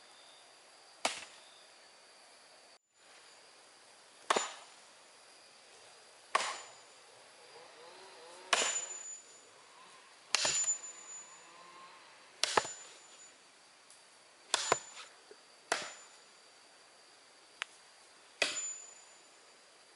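A hand tool striking wood over and over, about ten sharp blows roughly two seconds apart. Several blows leave a brief high metallic ring.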